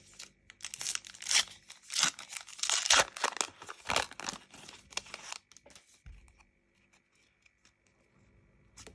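A trading-card booster pack wrapper is torn open and crinkled by hand. A quick run of sharp rustling tears lasts about five seconds and stops a little past halfway.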